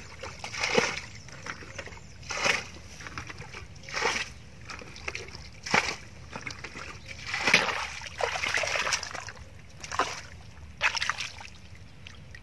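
Water splashing repeatedly as a plastic bucket scoops muddy water out of a shallow pool and throws it aside, one splash about every one and a half to two seconds.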